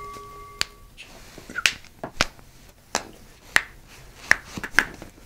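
Sharp clicks and pops of joints cracking under chiropractic manual manipulation, one every half second or so. A held ringing tone stops abruptly about a second in.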